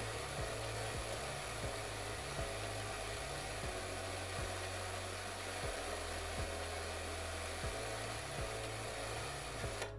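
Steady white-noise static hiss from a Sony FDT-5BX5 5-inch colour CRT TV's speaker while it shows snow with no signal, cutting off abruptly just before the end. A backing track's bass and beat continue underneath.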